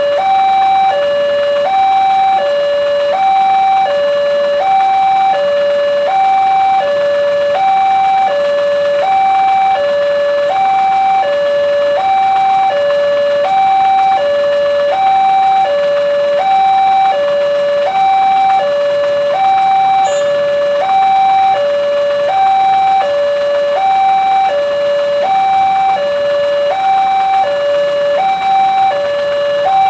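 Indonesian railway level-crossing warning alarm sounding continuously, a loud electronic two-tone signal alternating high and low about every three-quarters of a second. It is the warning that a train is approaching and the barrier is closing or closed.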